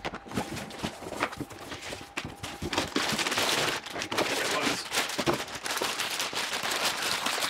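Cardboard box being opened and its flaps handled, then thin plastic packaging bags crinkling and rustling densely as they are pulled out and handled.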